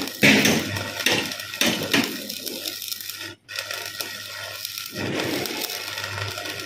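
Electric arc welding on a truck's bumper mounting: a continuous crackling, sputtering hiss with irregular louder pops, over a steady low hum.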